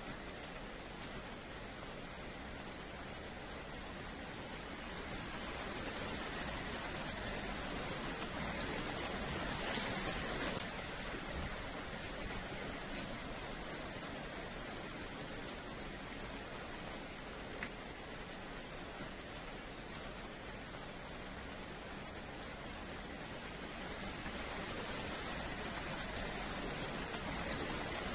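Steady rain falling on a paved yard, a dense even hiss that swells for a moment about ten seconds in and again near the end.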